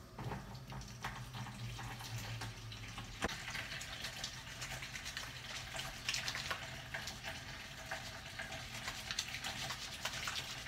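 Water running from a sink tap while hands are washed under it: a steady rush of water with small splashes and knocks.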